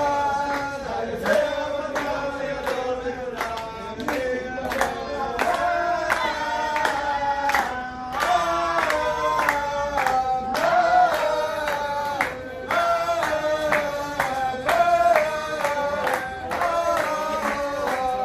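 A group of Orthodox Jewish men singing a lively song together in unison, with steady rhythmic hand claps about two a second.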